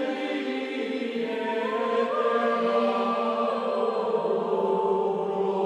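Background music of slow, choir-like chanting: voices holding long notes that shift slowly in pitch.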